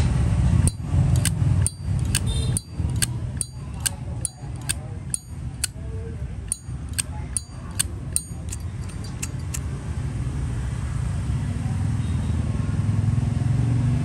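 Zippo lighter's hinged metal lid being flicked open and snapped shut over and over, a run of sharp metallic clicks with a bright ring, about two a second, stopping near the end. The lid action shows off the lighter's 'good sound'.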